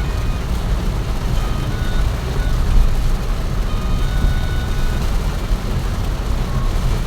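A vehicle driving through heavy rain: a steady low rumble of engine and road under an even hiss of rain.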